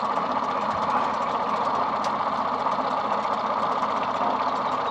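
Boat motor idling steadily.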